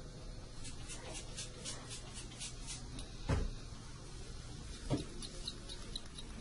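Dental hand instrument scraping along teeth in quick short strokes, about four a second, as the teeth are cleaned. Two dull thumps come in the middle, the first the loudest, and then the quick strokes start again near the end.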